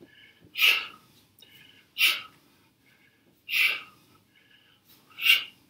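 Four sharp, forceful exhaled breaths, about one every one and a half seconds, each pushed out with a taekwondo kick in a combination.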